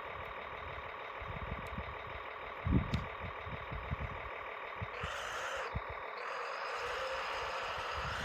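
Kyosho Blizzard radio-controlled snowcat running, its electric motors and gear-driven tracks making a steady whine that briefly gets louder and harsher about five seconds in. Irregular low thumps run underneath, the strongest about three seconds in.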